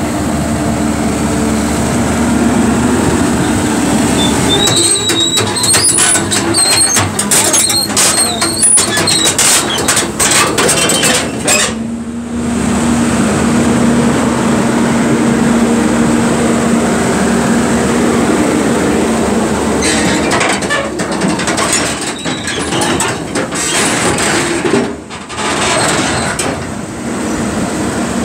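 Caterpillar 320D hydraulic excavator's C6.4 diesel engine running under load as the machine tracks onto a steel lowboy trailer. Its steel tracks clank and squeak against the trailer deck in two long spells, about five seconds in and again about twenty seconds in.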